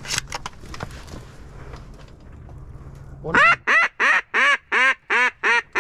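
A duck call blown in a rapid, evenly spaced string of about eight loud quacks, roughly three a second, starting a little past halfway; each note rises and falls in pitch.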